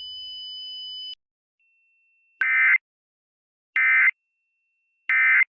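Emergency Alert System end-of-message tones: three short, buzzy digital data bursts about a second apart, marking the end of the alert. Before them a faint steady high tone cuts off about a second in.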